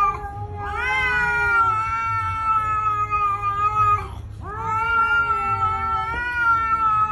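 A cat yowling at another cat in two long, drawn-out calls, each rising at the start and then held steady, with a short break between them.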